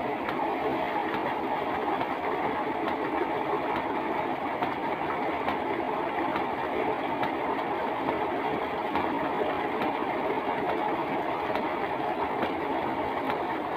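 Water from a tubewell outlet pipe pouring steadily into a round concrete tank, a continuous rushing splash that does not change.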